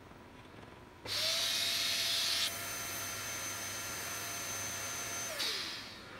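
Vacuum motor of a robot's suction gripper switching on about a second in with a loud rushing hiss and a steady whine. About a second and a half later the hiss drops a little and a high whistle joins it. The motor cuts off near the end, its whine falling in pitch as it spins down.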